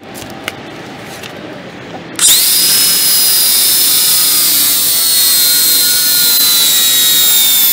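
Craftsman cordless angle grinder with a flap disc starting up about two seconds in, then running with a high whine that sags slowly in pitch as it grinds the steel tip of a spearfishing spear to sharpen it.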